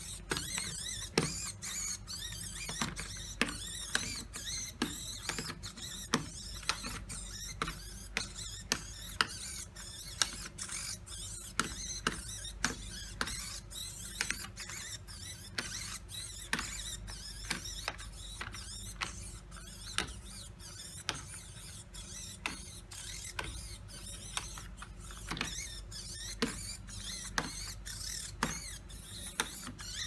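Mechanism of a self-solving Rubik's cube turning its faces: a steady whir with a sharp plastic click about one and a half times a second as each layer turns.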